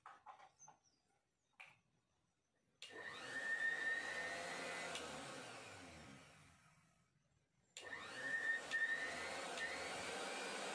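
Mixer grinder's electric motor test-run during repair: after a few small clicks it switches on sharply about three seconds in and runs with a high whine, then slowly winds down to a stop. It is switched on again a little before the end and keeps running.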